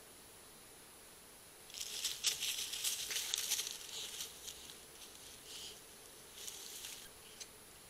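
Dry leaves and pine needles crackling and rustling under young raccoons wrestling on the ground, in irregular bursts: a long spell of about two seconds starting about two seconds in, then a few shorter crackles.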